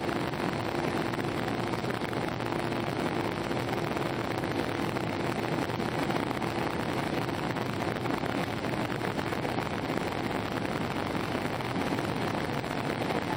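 Airbus A319 cabin noise in flight: the steady rush of airflow and jet engines heard from inside the passenger cabin, with a faint steady hum that fades near the end.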